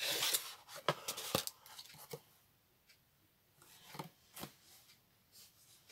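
Cardboard packaging being handled: a brief rustle and slide as a rolled canvas tube comes out of its box, then a few short knocks and taps as it and other items are set down on a cutting mat.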